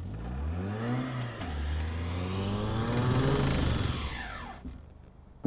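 Ford Fusion's engine revving hard inside the car as the car, stuck in snow and without traction, tries to drive out under tow. The revs climb, dip about a second in, climb again and then fall away near the end.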